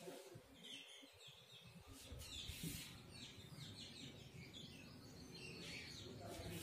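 Faint strokes of a marker on a whiteboard as lines are drawn, with a few short hissy scrapes, over light high chirping.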